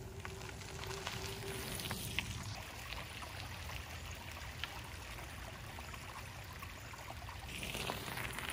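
A bicycle rolling over a gravel trail, with scattered small crunches and clicks, swelling near the end as it passes close by.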